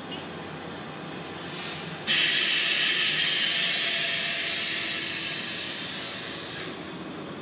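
A sudden loud hiss of compressed air venting from a Kominato Railway KiHa 200 diesel railcar's air system, starting about two seconds in after a softer hiss and fading away over some four seconds. A steady low rumble runs underneath.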